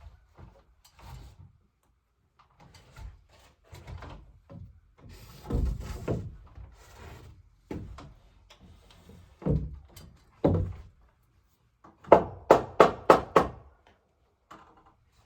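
Irregular knocks and thumps on wood, with a denser clatter about five to six seconds in, and near the end a quick run of about six sharp strikes, roughly four a second.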